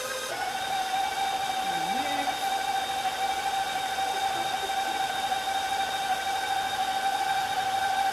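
Stand mixer's electric motor running steadily with a whine as its beater works through cookie dough. The whine steps up in pitch shortly after the start as the speed is raised, then starts to wind down right at the end as the mixer is switched off.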